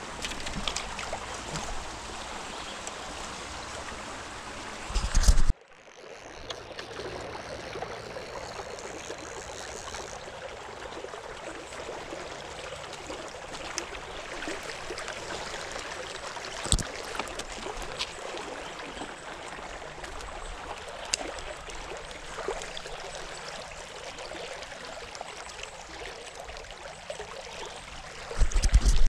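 Shallow stream running steadily over gravel, with a few sharp clicks. Brief loud low bursts come about five seconds in and again just before the end.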